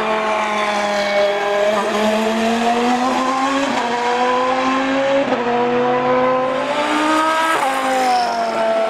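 Pescarolo LMP1's 5.5-litre Judd V10 racing engine accelerating hard through the gears: the note climbs and drops sharply at three upshifts. Near the end the car passes close and the pitch falls away.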